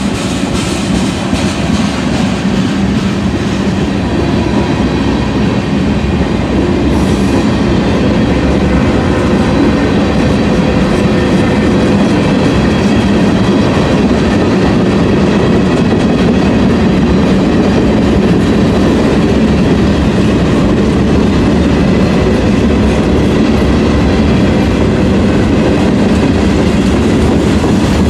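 Cars of a CSX freight train rolling past steadily on the rails, a loud, continuous rumble of wheels on track.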